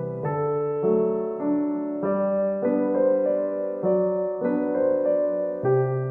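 Background piano music: a slow, gentle melody over chords, with a new note about every half second.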